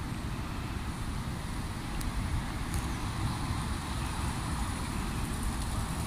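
Wind buffeting the microphone in a steady, fluttering low rumble, with a continuous rushing hiss over it.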